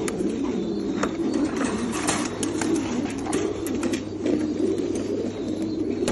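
A flock of French meat pigeons cooing together in a continuous low chorus, with scattered light clicks and rattles on top.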